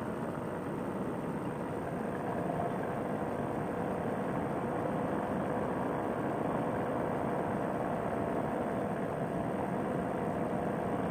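Paramotor trike's Fresh Breeze Monster two-stroke engine and propeller running steadily in cruising flight, mixed with wind rush; a little louder about two seconds in.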